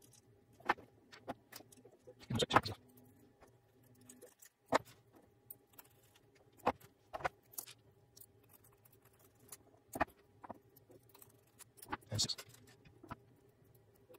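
Small metal servo horns and plastic servo cases being handled and fitted: irregular light clicks and clinks, with louder rattling clusters about two and a half seconds in and again near twelve seconds.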